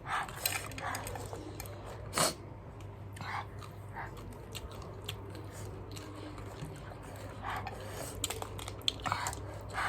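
A person biting and chewing crisp cabbage, with irregular crunches and a sharper snap about two seconds in, over a steady low hum.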